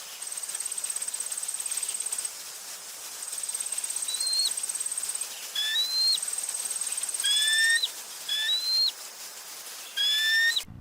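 Nature ambience: an insect trills in three long, evenly pulsed bursts over a soft hiss. A bird gives five short calls, each rising in pitch and then dropping off sharply.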